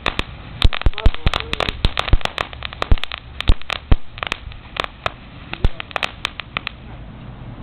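Firecrackers going off in a rapid, irregular string of sharp pops, thinning out and stopping about six and a half seconds in.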